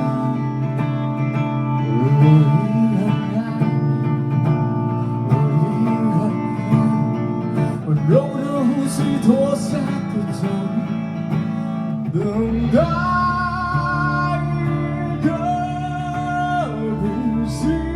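A live band playing: guitar chords with a melody line over them. Bass comes in about twelve seconds in, under held, wavering notes.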